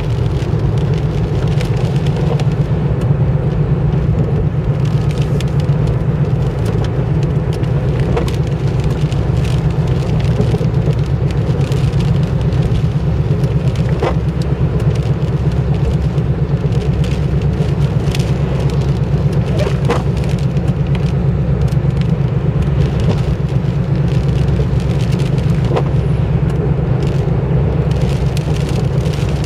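Steady low drone of a car's engine and tyres on a wet road, heard from inside the cabin while driving. A faint swish about every six seconds, in time with the intermittent windscreen wiper.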